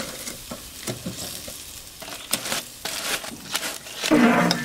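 Pork steaks sizzling over a charcoal grill, with scattered sharp clicks of metal tongs against the meat and the grill grate. A short voice comes in near the end.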